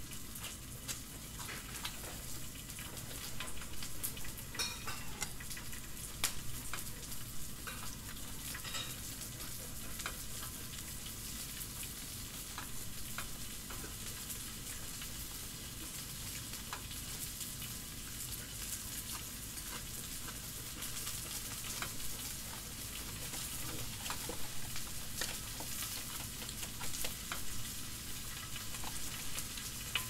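Green pepper pieces and morning glory greens sizzling steadily on a hot tabletop griddle, with scattered pops and clicks.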